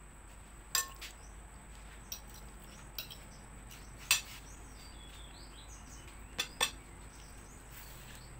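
Metal fork clinking and scraping against a plate of spaghetti during eating, about six sharp clinks, two of them close together near the end.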